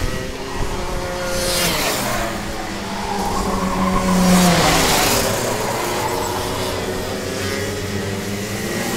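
Rotax Mini Max two-stroke kart engines buzzing as racing karts pass close by, their pitch dropping as each goes past, with the loudest passes about two seconds and four to five seconds in.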